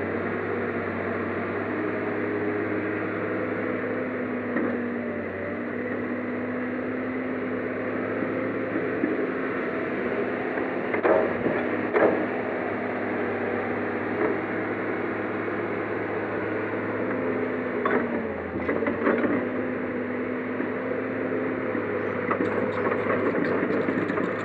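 Komatsu crawler excavator's diesel engine running steadily under working load, with hydraulic hum as the boom and bucket move. A few sharp knocks come about eleven and twelve seconds in and again around eighteen to nineteen seconds.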